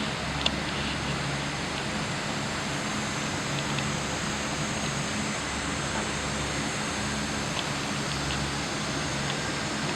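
Steady machine noise: an even rush of air over a low hum, with a few faint clicks.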